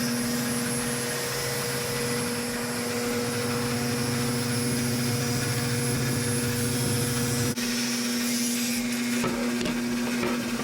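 A shop power tool's motor running steadily with a constant hum and hiss; its lower drone drops away about seven and a half seconds in, as the load on it changes.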